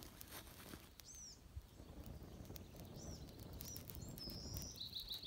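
Birds chirping: a few short high chirps, a brief whistle, then a quick trill near the end. Under them, a soft rush of breath blown onto a small kindling fire.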